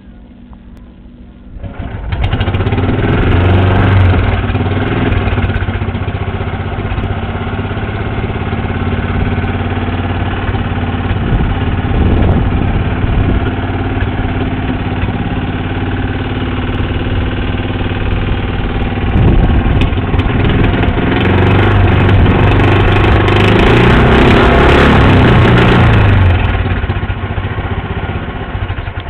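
A boat's modified lawn mower engine starts up about two seconds in and runs loudly, its speed rising and falling, then dies away near the end.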